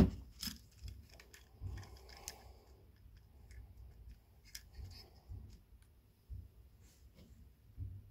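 A sharp click as the battery lead on an Orlandoo Hunter P02 micro RC truck chassis is plugged in, then scattered light clicks and plastic handling knocks as the small chassis is picked up, turned about and set back down.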